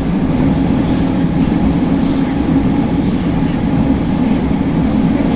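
Athens Metro Line 2 train running through a tunnel, heard from inside the carriage: a steady, loud rumble of wheels on the rails.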